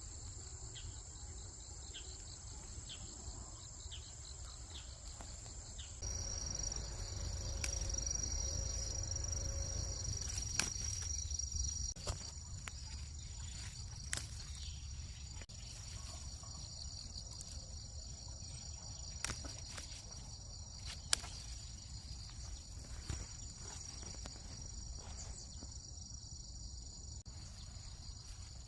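Autumn crickets and other insects chirping in a steady, high-pitched chorus, with a few sharp clicks and a low rumble underneath.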